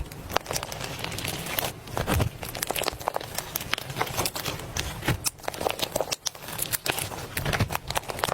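Hands squishing, pressing and stretching slime, giving a dense run of irregular sticky clicks and crackles.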